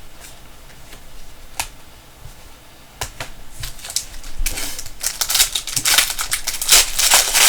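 Trading cards and their packaging being handled by hand: a few sharp separate clicks, then a dense run of clicking and crackling over the last few seconds.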